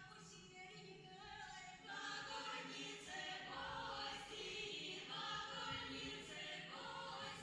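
Music with a choir singing held notes that move from chord to chord, growing louder about two seconds in.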